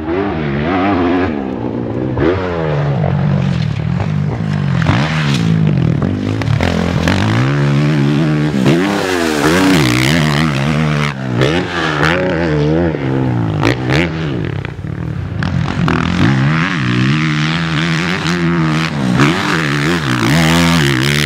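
Suzuki motocross bike engine being ridden hard, revving up and dropping back again and again with the throttle, its pitch repeatedly climbing and falling.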